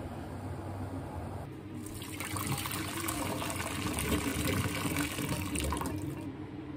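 Hot cooking water poured from a pot through a plastic colander, draining boiled vegetables. The splashing starts about two seconds in and stops about six seconds in.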